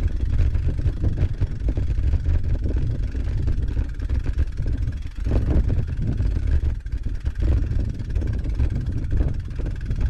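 Wind buffeting the microphone of a bicycle-mounted camera on a moving bike, a loud, uneven low rumble, with the tyres rolling over a grassy dirt track underneath.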